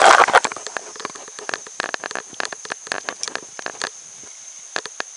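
A fishing rod swung in a cast, with a loud rush in the first half second. Then a spinning reel is cranked to retrieve the lure, making irregular clicks and rattles several times a second. A steady high insect drone runs underneath.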